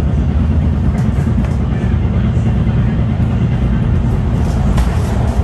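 MARTA rail car running between stations: a loud, steady low rumble heard from inside the car, with faint clicks about a second in and near the end.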